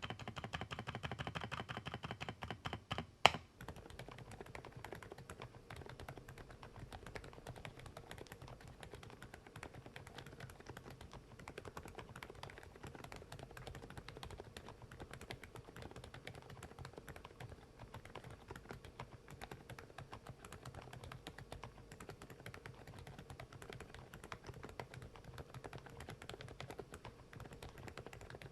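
Fast continuous typing on silent mechanical keyboards, muted and soft. For the first three seconds it is an AULA F108 PRO with LEOBOG silent Cotton Candy switches, a little louder. After a sharp click it changes to an Interpixel IPK 104 PRO with silent Peach V3 switches, quieter still.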